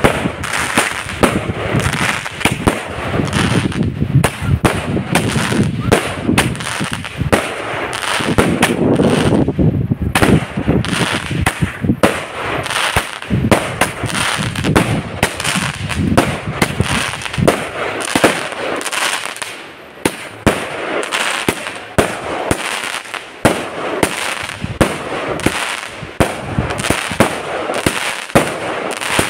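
A 70-shot fireworks cake firing shot after shot, each one launching and bursting overhead. In the first half the shots come thick and overlapping; in the second half they come as separate sharp bangs about a second apart.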